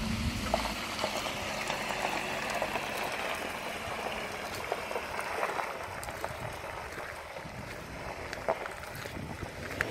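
Hyundai Tucson SUV rolling slowly over a wet gravel track: tyres crackling and popping on the loose stones, with a faint low engine hum in the first few seconds.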